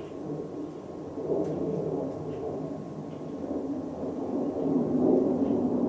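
K63 Casablanca Zephyr ceiling fan running on its lowest Slumber-Quiet speed setting: a steady low rushing sound with a faint steady tone.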